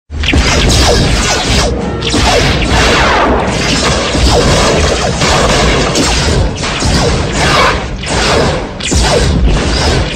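A dense, unbroken barrage of firearm sound effects: crashes and booms overlapping with many whooshing streaks that fall in pitch, like bullets whizzing past.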